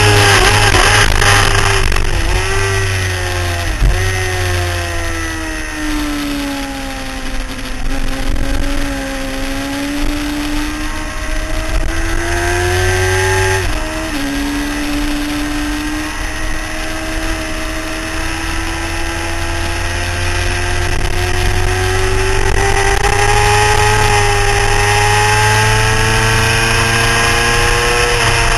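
Motorcycle engine at speed on a race track, heard onboard over a steady rush of wind. The engine note falls and wavers through the first several seconds as the bike slows into and through corners. It drops sharply around halfway, then climbs steadily in pitch under a long pull.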